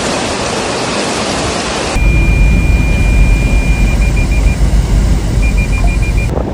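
A steady rushing noise, then after about two seconds a cut to wind buffeting the microphone with a low rumble. Over the wind, a single high electronic tone sounds steadily, then breaks into short rapid beeps.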